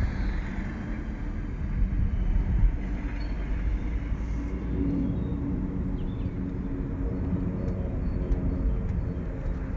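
Steady low outdoor rumble, with a faint hum coming in about halfway through.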